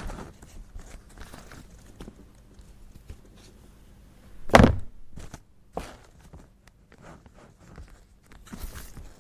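Office desk handling sounds: scattered small knocks and rustles, with one heavy thunk about four and a half seconds in and a short swish near the end.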